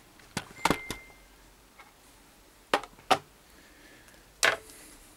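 Handling noise from a handheld camera being moved and repositioned: a few sharp clicks and knocks, in clusters about half a second in, around three seconds in and once more near the end, with a brief high beep about a second in.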